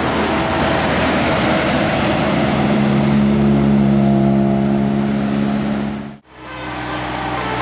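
A motor vehicle's engine passing close under load, a loud drone that settles to a steady pitch for a few seconds. The sound cuts out abruptly about six seconds in, then resumes.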